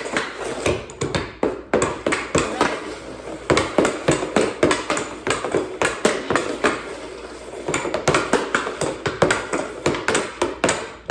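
Hockey stick blade and puck clacking in quick, uneven knocks on plastic dryland tiles during a stickhandling drill, several knocks a second with a short thinner patch partway through.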